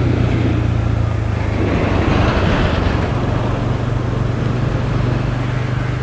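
Bajaj Pulsar N160's single-cylinder engine running steadily, a constant low hum under a haze of wind and road noise.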